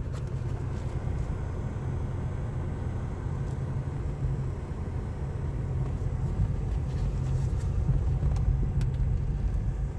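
Low, steady rumble of a car's engine and tyres heard from inside the cabin as it drives slowly, with a few faint clicks.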